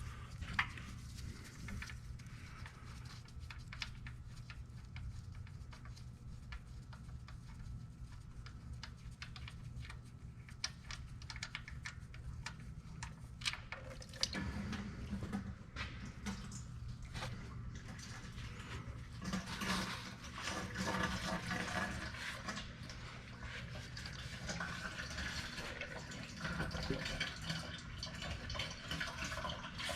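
Hot engine oil pouring from the oil pan's drain-plug hole into a catch pan, a steady liquid stream with scattered small clicks and knocks.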